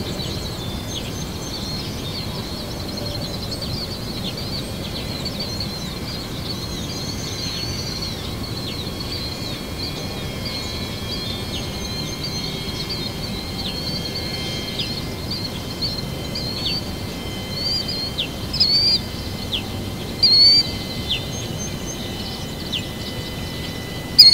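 Birds chirping and calling over a steady outdoor hiss, with many short chirps that become louder and more frequent toward the end.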